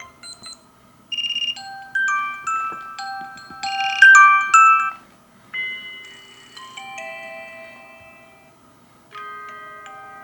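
Vivo Y52 5G smartphone's built-in alarm tones previewed one after another through its speaker: short electronic melodies of high, bell-like chime notes, each cut off after a few seconds as the next tone begins.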